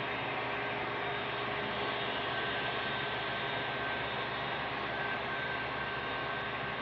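Steady hum of a model railroad unit coal train running on the layout, with the sound-equipped BNSF SD70ACe models' diesel prime mover sound.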